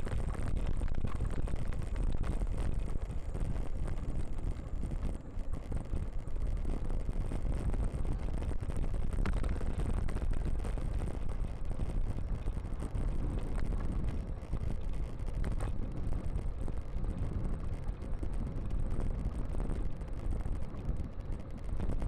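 Steady wind rumble buffeting the microphone of a bicycle-mounted camera, mixed with tyre and road noise as the mountain bike rolls along a paved road.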